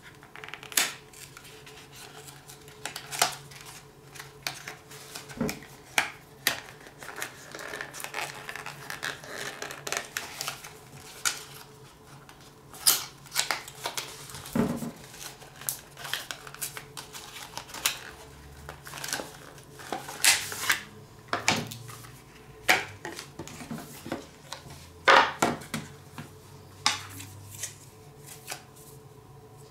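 A small cardboard retail box for a phone case being handled and opened, and the folio case and a paper insert being taken out: irregular sharp taps and clicks of cardboard and plastic, with some rustling of packaging.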